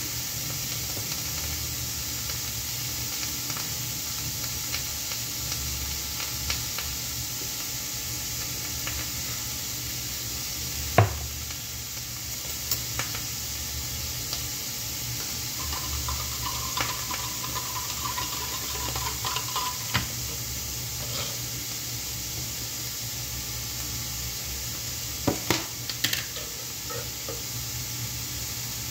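Steady sizzle of food frying in a covered stainless pan, with a sharp metallic click about eleven seconds in as a pull-tab can is opened, and a few lighter clicks and knocks near the end.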